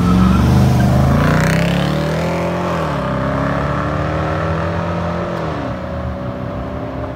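A car engine accelerating past close by and pulling away down the street, loudest at first, its engine note dropping sharply twice, about two and a half and five and a half seconds in.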